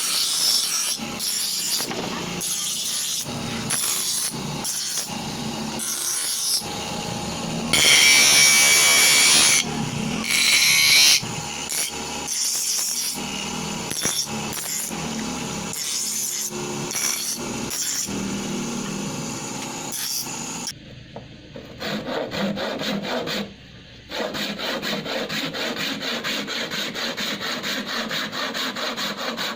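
Hand tool working on a knife or its handle: repeated irregular rasping strokes like sawing or filing, with louder hissing stretches. From about twenty seconds in it changes to a small power tool running steadily.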